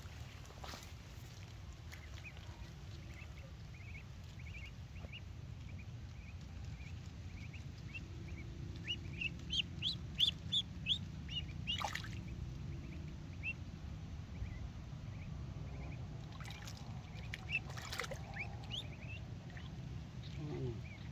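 Duckling hanging on a fishing line as live bait, peeping over and over in short high calls, most densely about ten seconds in. A steady low rumble runs underneath, with two sharp clicks.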